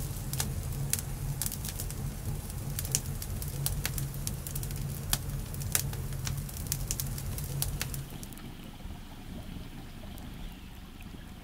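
Wood campfire crackling and popping: sharp snaps of burning sticks over a low rumble of flames. About eight seconds in, the crackling stops and only a quieter, steady background remains.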